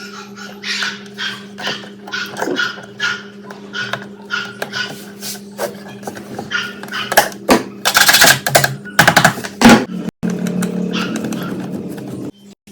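Steady low hum under a run of sharp clicks and knocks of metal parts being handled, with a louder stretch of clatter a little past the middle.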